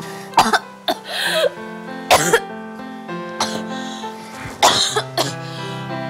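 A woman coughing in a series of short, irregular fits, over steady background music.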